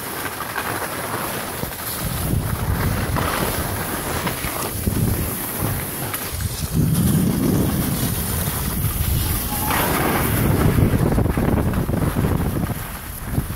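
Wind buffeting the microphone of a camera carried by a moving skier, a heavy rumbling rush that swells about two seconds in and again past the middle, over the hiss of skis sliding on packed snow.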